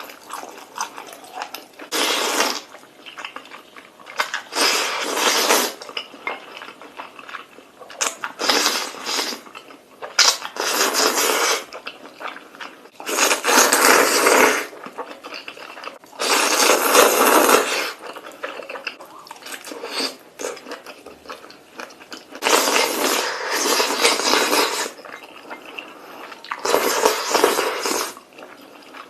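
A person slurping spicy Korean noodles, about eight long slurps, each a second or two long, with quieter gaps between.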